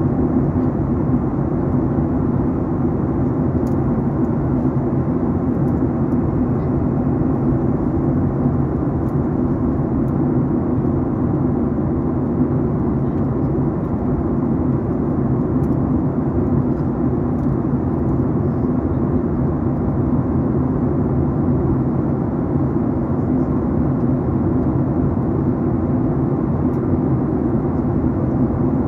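Steady in-cabin noise of a Boeing 737 MAX 8 during descent: an even low roar of airflow and its CFM LEAP-1B engines heard from inside the passenger cabin.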